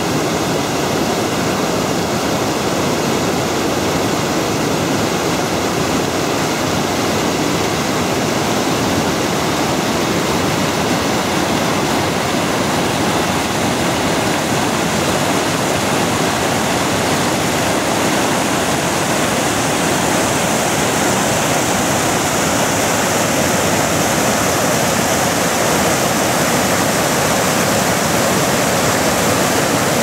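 River water rushing over a low, wide rock-ledge waterfall and through the rapids below it: a steady, even rush of water, growing a little louder toward the end.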